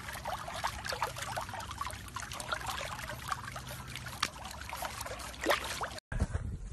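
Pool water splashing and lapping as a French bulldog paddles through it: a run of small, irregular splashes that cuts off abruptly about six seconds in.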